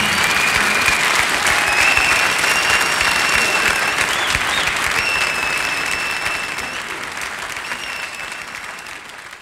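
Audience applause with long high whistles over it, closing a live music track and fading out over the last few seconds.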